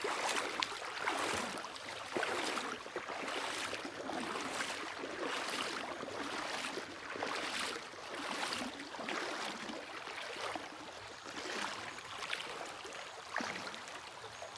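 Creek water running over a stony bed, with a regular splashing swish about twice a second.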